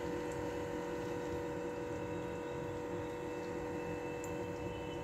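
A steady background hum made of several held tones, unchanged throughout, with a faint tick or two; the hand-folding of the dough makes no distinct sound.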